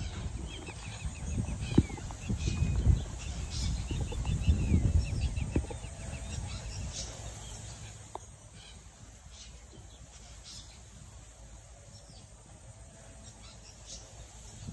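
Outdoor ambience: wind rumbling on the microphone, scattered bird chirps, and faint noises of puppies at play over the first half. It quietens after about eight seconds.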